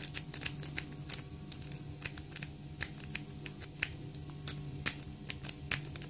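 Lock-pick rake working in the keyway of a Vinco brass padlock, giving quick, irregular light metal clicks, several a second, as it scrapes over the pin stacks under tension to set the pins.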